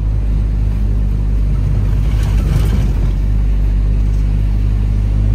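A 4WD vehicle driving, its engine and road noise making a steady low rumble, with a brief surge of rougher noise about two to three seconds in.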